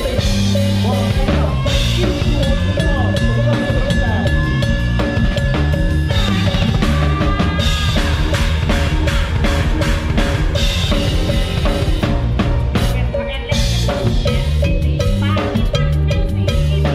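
A drum kit played hard in a live band: snare, kick drum and cymbals drive a busy beat over the rest of the band.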